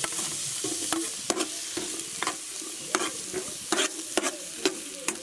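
Chopped onion sizzling in hot oil in a cooking pot, a steady hiss. Metal utensils clink and scrape against the pot in irregular knocks as the onion is tipped in and stirred.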